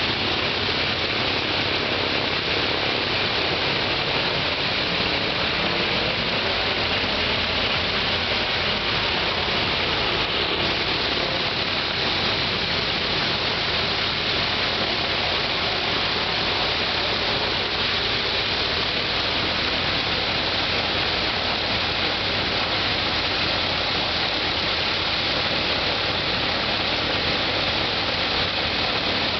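Ilyushin Il-14T's Shvetsov ASh-82T fourteen-cylinder radial engine running steadily close by, with its propeller turning: a dense, even noise of exhaust and propeller wash that holds the same level throughout.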